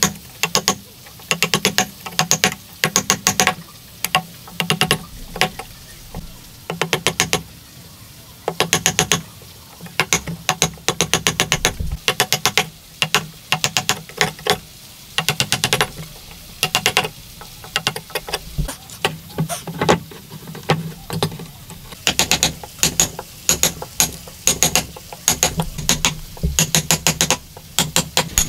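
A hammer driving a wood chisel into a hardwood beam to chop out a joint: quick bursts of sharp, ringing strikes, several in a row, with short pauses between bursts.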